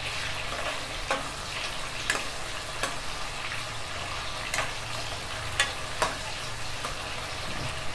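Tomatoes, onion and curry leaves sizzling in hot oil in a kadhai, stirred with a metal ladle that scrapes and knocks against the pan several times.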